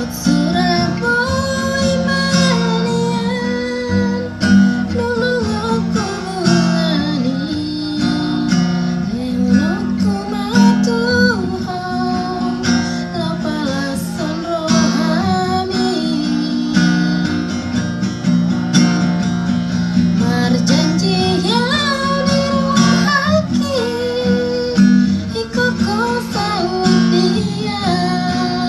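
A woman singing a Batak Toba song to acoustic guitar strumming, her voice worn by a cough and cold.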